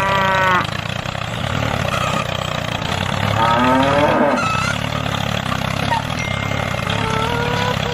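A cow mooing twice, one call right at the start and a longer one about three and a half seconds in, over the steady hum of a small tractor engine running.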